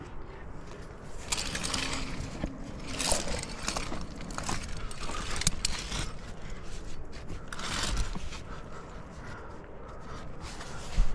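Hands and climbing shoes scraping and shuffling on rough granite while jamming up a crack, in a series of short scrapes, with the climbing rack on the harness clinking. A sharp knock comes near the end.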